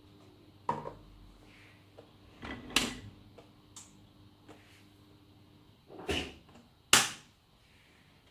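Hard plastic clunks and knocks as the Philips Avent steamer-blender's jar is handled, flipped over and seated on its base: a few separate knocks, the loudest about seven seconds in.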